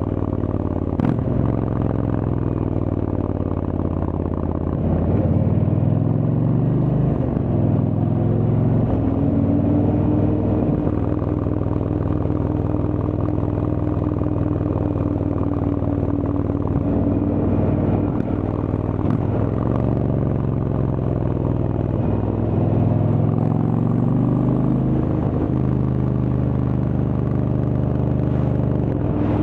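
Indian Chieftain's Thunder Stroke V-twin engine running under way through a Freedom Performance aftermarket exhaust. The engine note rises and falls several times with throttle and gear changes and holds steady for several seconds in the middle.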